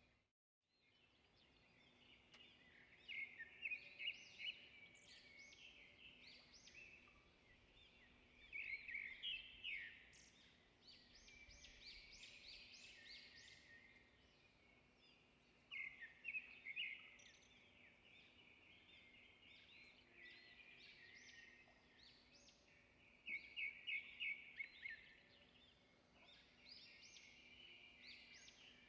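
Faint scratchy strokes of oil pastel on paper, coming in quick clusters of back-and-forth colouring.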